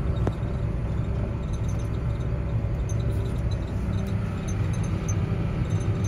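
Tractor engine running steadily, a low drone heard from inside the cab, with faint high ticks scattered through it.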